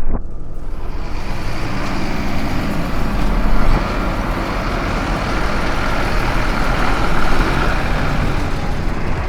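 Truck engine running, a steady rumble with a noisy hiss over it, starting and stopping abruptly.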